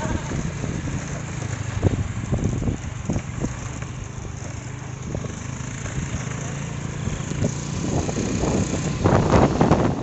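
A two-wheeler's engine running steadily while riding a bumpy dirt track, with noise of rushing air and many short knocks and rattles. The noise gets louder in the last couple of seconds.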